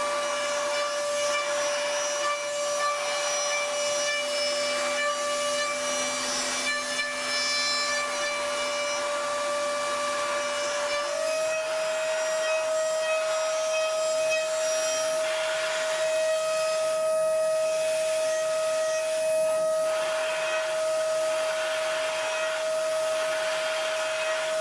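CNC milling machine's spindle running at high speed while cutting, a steady high whine over the hiss of the cut. Its pitch steps up slightly about eleven seconds in.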